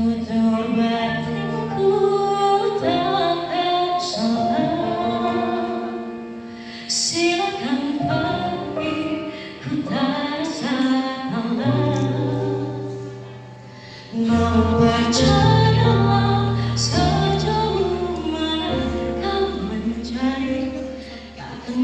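A woman singing a song into a microphone over a backing track with long held bass notes, amplified through a PA.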